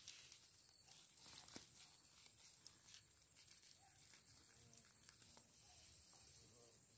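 Near silence: faint rustling and crackling of a hand pulling moss and soil from among leaf litter, strongest at the start.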